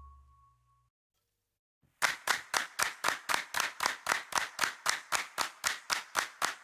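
The last note of a song dies away, then silence. About two seconds in, a steady run of hand claps begins, about four a second, beating time as a song's intro.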